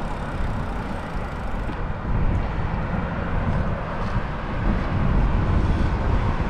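Wind buffeting the microphone of a bicycle rider in motion, a steady low rumble mixed with road noise.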